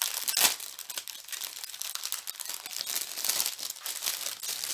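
Plastic packaging crinkling and rustling as it is handled, with a louder, sharper rustle about half a second in.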